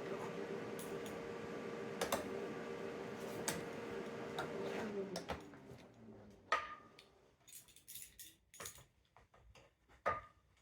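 TIG welder arc running steadily with a hum and hiss while tacking the knob to its shaft. About five seconds in it winds down with a falling pitch. Light metallic clinks and taps follow as the work is handled.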